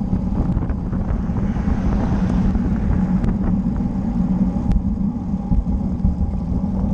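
Wind rushing over a bicycle-mounted camera's microphone with the steady rumble of road-bike tyres on asphalt, while riding at speed, and a couple of sharp ticks.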